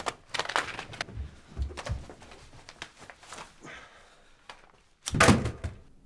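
Knocks and thumps of furniture and movement as a seated man jumps up to confront another man, with one loud thud about five seconds in.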